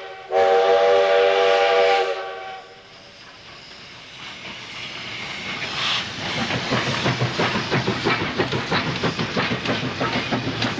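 Steam locomotive whistle blowing one steady blast for about two seconds. Then the locomotive runs with a rapid, regular beat that grows louder from about five seconds in.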